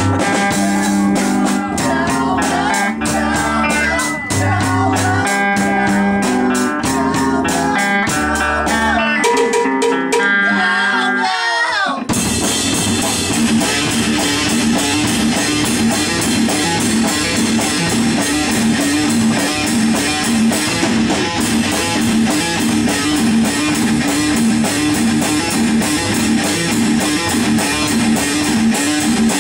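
A band playing a song on guitar, bass and drums. About twelve seconds in it breaks from separate picked notes over a bass line into a louder, denser full-band section with a steady beat.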